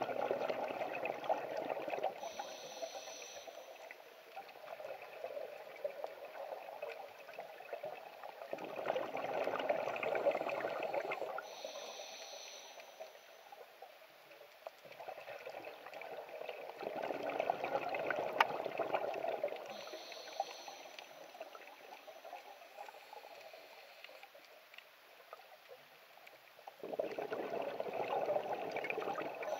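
Scuba regulator exhaust: a diver's exhaled bubbles rushing out in four bursts of two to three seconds, about every eight to nine seconds, each followed by a short high hiss.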